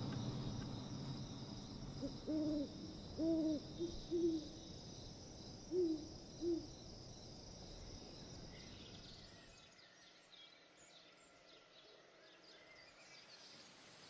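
An owl hooting: about six low hoots in the first half, over a steady high-pitched chorus of night insects that fades out about two-thirds of the way through, leaving faint high chirps.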